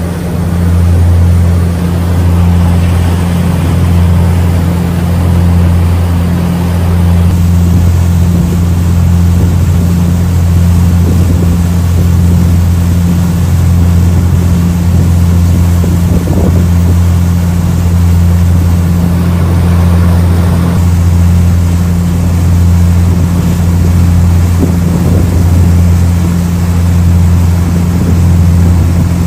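Car ferry's diesel engine droning steadily while underway: a constant low hum with a steady rushing noise over it.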